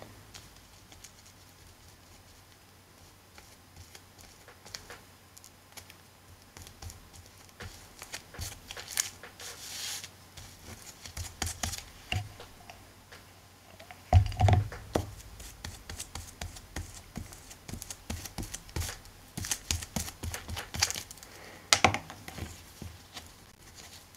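Hands handling paper and cloth on a cutting mat while glue is brushed on and the cloth smoothed down: scattered rustles, scrapes and light taps, with a louder knock about 14 seconds in and another near 22 seconds.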